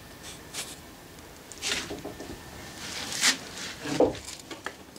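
A few brief rustles and knocks from someone moving about and handling things, the loudest about three and four seconds in.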